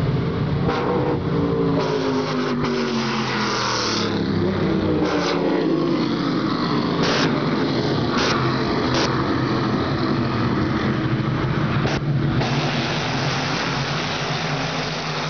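USAC Silver Crown pavement race cars running around the track at slow pace speed, engines droning steadily, with the pitch falling as cars pass by in the first several seconds.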